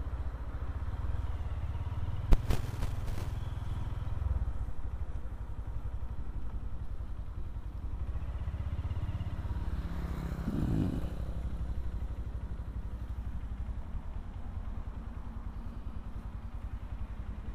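Motorcycle engine running steadily while riding at low speed through town, heard from the rider's seat. A single sharp click about two seconds in.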